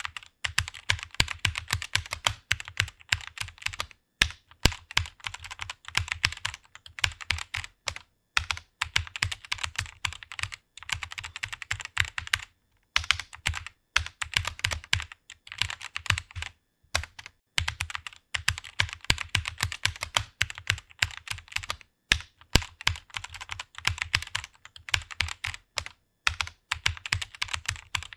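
Fast typing on a computer keyboard: a rapid stream of key clicks, broken by brief pauses about every four seconds.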